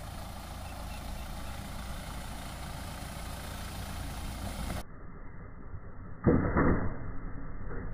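Mahindra Thar CRDe's four-cylinder diesel engine running at low revs as the jeep crawls over a rough dirt track. The low engine sound is steady, and a sudden louder burst of noise cuts in about six seconds in.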